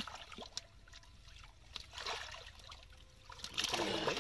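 Shallow water splashing and trickling as hands work a fish out of a gill net, in several short surges with the loudest near the end.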